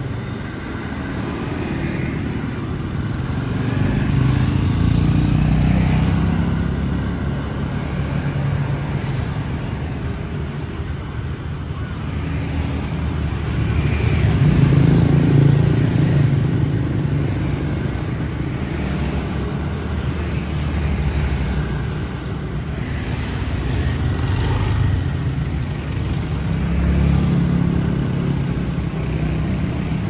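Steady city street traffic of motorbikes and cars passing close by, their engine and tyre noise swelling and fading as each goes past. The loudest pass comes about halfway through.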